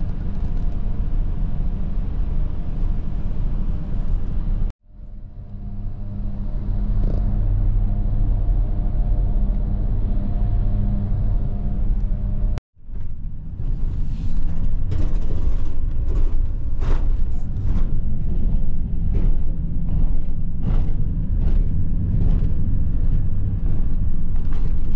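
Delivery van driving, a steady engine and road rumble. In the later part many short knocks come through over the rumble.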